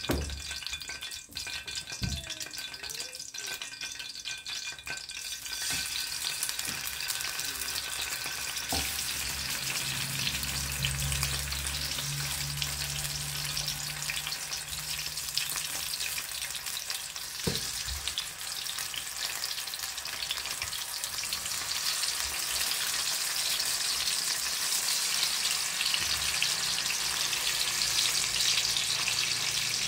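Eggplant pieces frying in a pan on a gas stove: a sizzle that starts about five seconds in and grows louder as more pieces go in, with a few knocks along the way.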